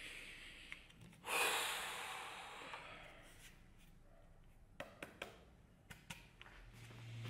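Handling of wooden handle scales against a steel sword tang, with a heavy exhale about a second in and a few sharp clicks of wood on metal later on. A steady low hum comes in near the end.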